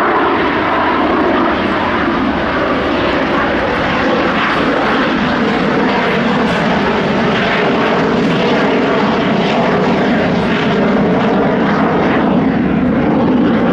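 F-16 fighter jet in display flight, its jet engine making loud, steady noise whose tone slowly drifts in pitch as the aircraft moves.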